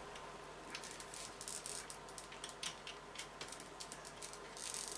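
Faint, irregular light clicks and rattles from the drivetrain and chassis parts of a radio-controlled off-road car being handled, its rear differential turned by hand to feel how stiff the diff oil is.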